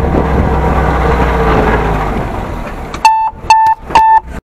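Vehicle running slowly along a rough forest track, then about three seconds in the engine noise gives way abruptly to three loud electronic beeps about half a second apart, each one steady tone, cut off suddenly.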